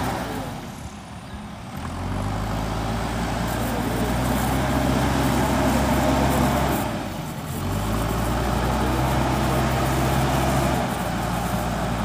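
JCB 3DX backhoe loader's diesel engine running steadily under load as the machine drives, a low drone that dips briefly twice.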